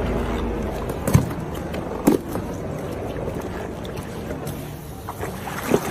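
A hippo biting down on a whole pumpkin: three sharp crunches, about a second in, about two seconds in and near the end, over water lapping.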